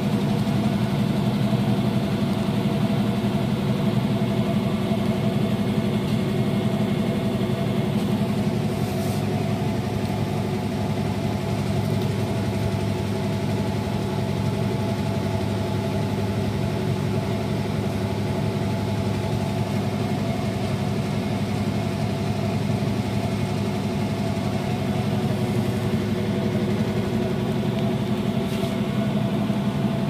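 Toshiba AW-J800A-PH top-loading washing machine spinning its drum at high speed: a steady motor hum with several held tones. The spin is running stably.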